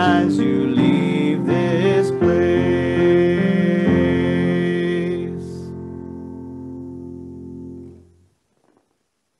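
A voice sings the closing line of a sung benediction over an instrumental accompaniment. The final chord is then held and fades away, ending abruptly about eight seconds in.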